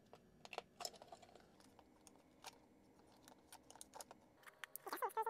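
Faint, scattered clicks and taps of 3D-printed plastic parts of an articulated AT-AT model being handled and worked at the joints. Near the end a wavering pitched sound begins.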